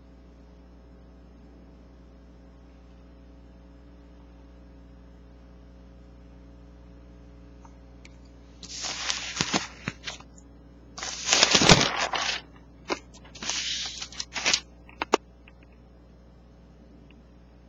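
Pages of a paper sales circular being handled and turned: three bursts of paper rustling and crinkling, the first about nine seconds in and the loudest around twelve seconds, over a faint steady hum.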